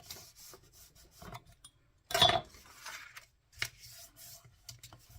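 Paper and card being handled and slid against each other on a craft table: rubbing, rustling and small taps, with one louder rustle a little over two seconds in.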